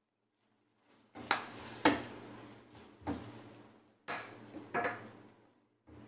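A slotted metal spoon stirring chopped tomatoes and onions in a metal kadai. It knocks and scrapes against the pan about six times, starting a second in, with a faint sizzle of frying in between.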